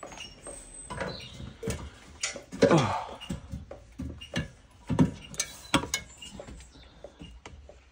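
Irregular knocks and clanks of a person climbing an aluminium loft ladder and moving about at the loft hatch, with a short sound falling in pitch about three seconds in.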